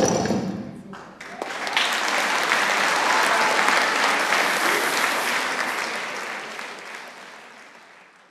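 Audience applauding, swelling about a second in as the last orchestral chord dies away, then fading out near the end.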